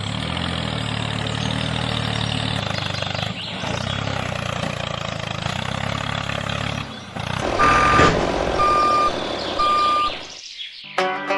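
A steady engine-like hum, followed by three evenly spaced beeps about a second apart, like a vehicle's reversing alarm. Music starts right at the end.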